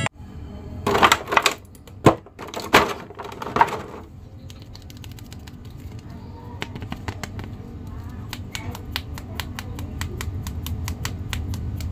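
A plastic action figure and its clear blister tray being handled: a few loud crinkling rustles of plastic in the first few seconds, then a run of small sharp plastic clicks from about six seconds in.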